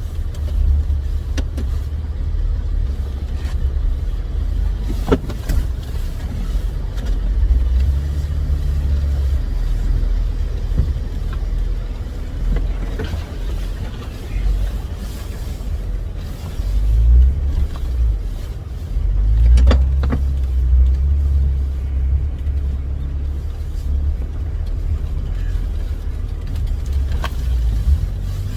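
Jeep Wrangler driving a rough, snowy off-road trail: a low, steady vehicle drone that swells and eases, with a few sharp knocks as it goes over bumps.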